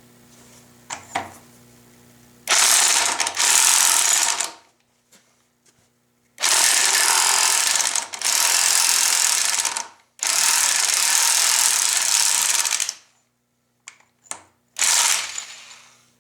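Corded electric 1/2-inch impact wrench hammering on a rusted transfer-case yoke nut in three long runs of a few seconds each, then a short final burst near the end, with a hokey sound unlike an air impact. It bangs the seized nut off.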